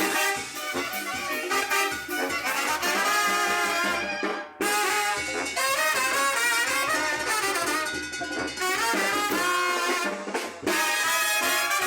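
Brass-led Latin dance music, with trumpets and trombones over the band, briefly dropping out about four and a half seconds in.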